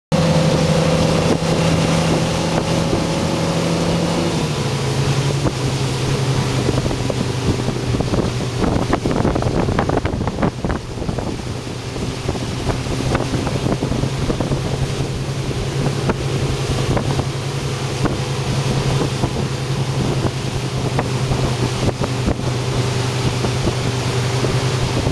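Motorboat engine running steadily under way, its pitch dropping a little about four seconds in, with wind and water noise over it.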